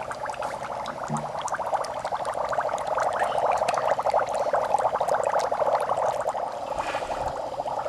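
Dry ice bubbling in a bowl of water: a steady, dense gurgling fizz as carbon dioxide gas from the sublimating dry ice bubbles up through the water.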